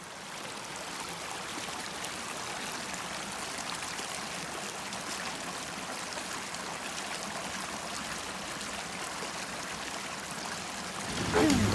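Small creek flowing steadily, fading in at the start. Music comes in just before the end.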